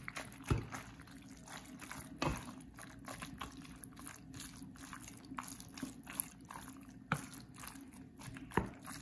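Wooden spoon stirring cooked penne and minced-meat sauce in a stainless steel pot: soft, wet squelching and sliding of the pasta, with a few sharper knocks of the spoon against the pot.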